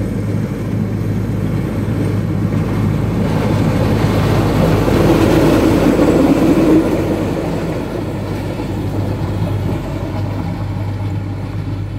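A vehicle passing close: a steady low engine hum throughout, with a rushing noise that builds to its loudest about six seconds in and then dies away.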